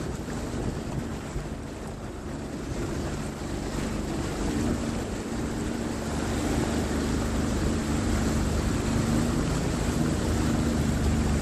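Personal watercraft (jet ski) engine running steadily while under way, with rushing water and wind buffeting the microphone. The engine gets gradually louder toward the end.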